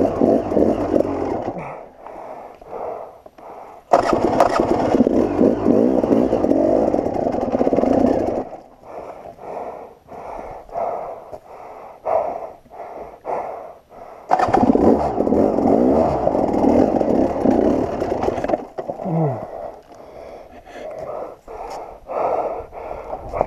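A KTM 300 XC-W's two-stroke single-cylinder engine is revved hard in three bursts of about four seconds each, as the bike is forced up a steep, rocky climb with its rear tyre scrabbling on rock. Between the bursts come quieter, short repeated sounds.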